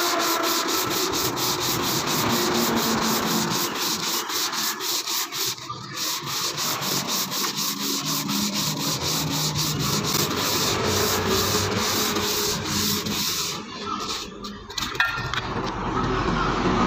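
320-grit wet sandpaper on a flat block, rubbed back and forth over the deck face of a Toyota Corolla cylinder head in quick, even strokes. This is hand-lapping the head's gasket surface flat. The strokes break off briefly twice, about six seconds in and again near fourteen seconds.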